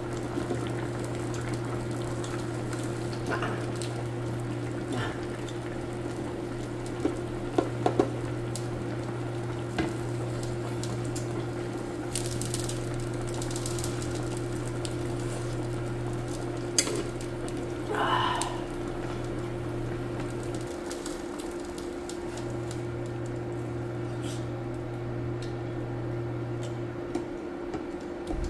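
Eating sounds: a few sharp clinks of a spoon and hands against dishes, and a short slurp or mouth sound about two-thirds of the way through. Underneath runs a steady low hum that drops out briefly twice near the end.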